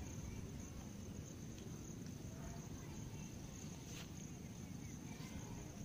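Quiet open-air ambience: a low rumble under a steady high insect drone, with faint scattered murmurs of voices.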